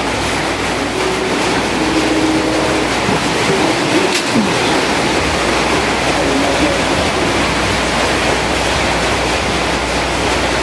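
Window-type air conditioner running, its fan giving a loud, steady rush of air, with faint voices underneath.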